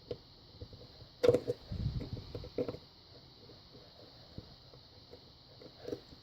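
Small clicks and knocks of a lock and hand tools being handled on a workbench: a sharp click a little after a second in, a duller knock just after, then scattered light ticks.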